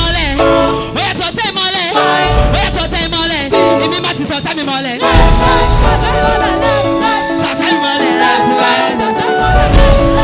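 Church worship music: voices singing over held instrumental chords and a deep bass line.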